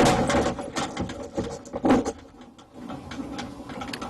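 A run of irregular taps, clicks and knocks from foley props being worked by hand, with a louder knock about two seconds in.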